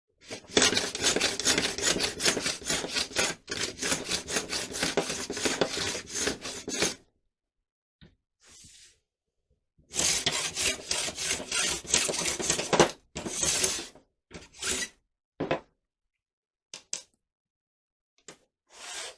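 Excess dried glue being worked off by hand with rapid back-and-forth scraping or sanding strokes. A long run of strokes is followed by a pause, a second run, and then a few short single strokes near the end.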